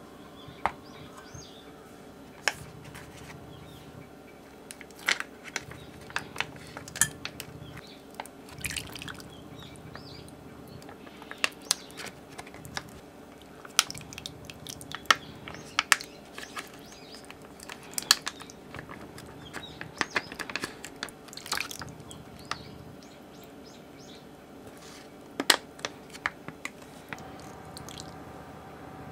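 Tapioca pearls and syrup squeezed from a plastic pouch, dripping and pouring into a metal mesh strainer, with a metal spoon clinking and scraping against the mesh. Scattered sharp clicks and knocks over a faint steady hum.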